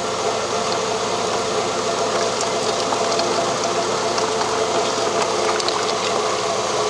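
VW Gol G5's 1.0-litre four-cylinder engine idling steadily, warm with its thermostat open, while a cooling-system flush runs, under a steady hiss of running water.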